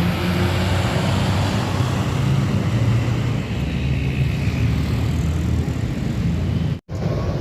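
Steady low rumble of large coach engines with tyre and road noise as buses drive past. It cuts out for an instant near the end.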